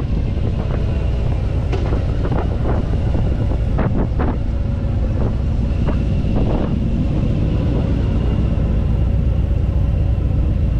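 Heavy wind buffeting on the microphone over the low, steady drone of a vehicle moving at speed, with a few sharp knocks about two to four seconds in.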